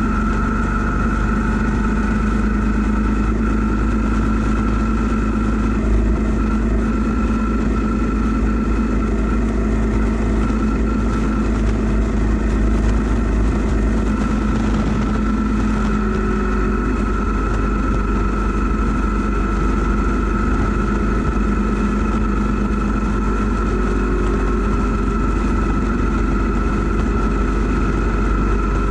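2012 Yamaha V Star 950's V-twin engine running at a steady cruise, its pitch holding level, with wind rumbling on the crash-bar-mounted action camera's microphone.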